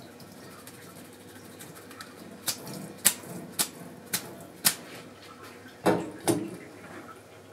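A plastic colander of washed oysters being handled at a stainless steel sink: five sharp taps about half a second apart, then two heavier knocks with a short metallic ring as it is set down on a stainless steel bowl.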